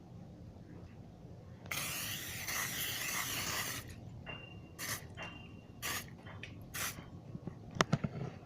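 Butter-flavoured cooking spray sprayed in one long hiss of about two seconds, then three short spurts, with a few light clicks near the end.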